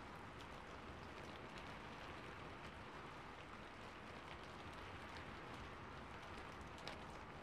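Faint, steady rain with scattered light patter of drops.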